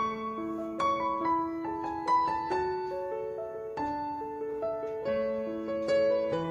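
Background music: a slow, gentle piano melody, notes struck about every half second.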